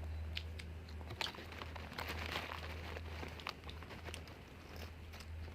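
Close-up eating sounds: crinkling of plastic food packaging with small scattered clicks, over a steady low hum.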